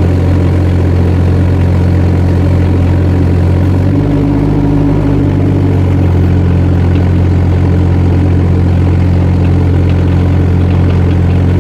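Kubota D902 three-cylinder diesel engine of a 2-ton mini excavator running steadily while the machine drives on its tracks in single (low) speed travel. The engine note shifts slightly about four seconds in.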